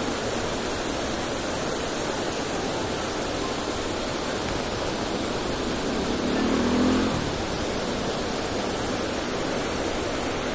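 Water pouring through a dam's sluice gates and churning into the river below: a steady rushing noise. A brief low hum rises over it about two-thirds of the way through.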